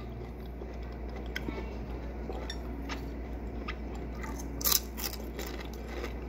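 A person chewing a mouthful of raw cactus stem: soft, wet chewing with scattered small clicks and a louder crisp crunch about two-thirds through. A steady low electrical hum lies underneath.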